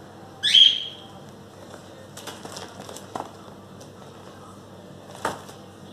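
A short, loud, high chirp about half a second in, rising sharply and then holding briefly. After it come a few dry crackles and taps from paper sheets being handled, with one more near the end.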